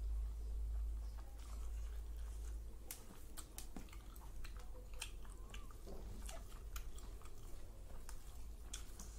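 A person chewing and biting chicken curry with rice eaten by hand, with many short wet mouth clicks and smacks. A steady low hum runs underneath, stronger in the first couple of seconds.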